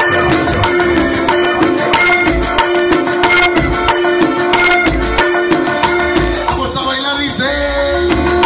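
Cumbia dance music played loud over a DJ's sound system, with a quick, even percussion beat under held melody notes.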